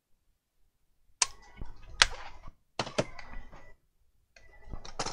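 Plastic laptop casing knocking and clattering against the bench as the laptop is picked up and turned over: a handful of sharp knocks starting about a second in.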